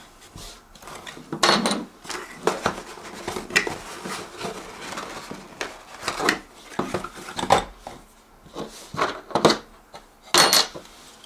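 Hands handling packaging and small electronics on a hard tabletop: irregular clicks, knocks and rustles as a small cardboard box is searched and metal-cased units and cables are picked up and set down, with the sharpest knock near the end.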